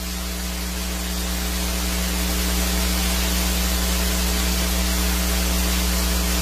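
Steady hiss of static with a low electrical hum under it, growing slightly louder over the first couple of seconds and then holding level.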